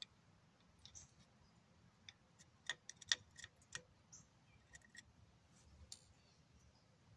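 Faint scattered light clicks and clinks of metal hand tools and parts being handled, with a quick run of several about two and a half to three seconds in.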